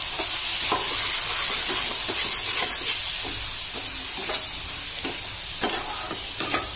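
Chopped onion, tomato and brinjal with ground spices sizzling steadily in hot mustard oil in a metal kadai, while a metal spatula stirs and scrapes the pan in irregular strokes about once a second.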